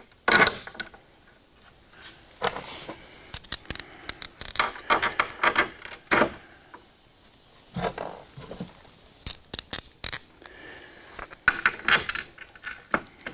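Steel washers and half-inch bolts clinking and tapping against a bench vise's base as they are fitted through its mounting holes. The sound is an irregular scatter of small metallic clicks.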